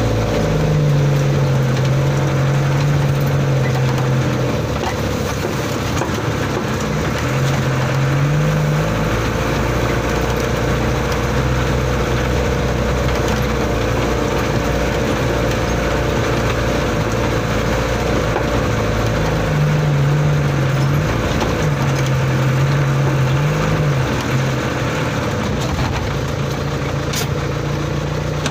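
Old truck's engine heard from inside the cab, running steadily as it drives a rough dirt track. Its note rises and falls several times, over a constant wash of road and cab noise.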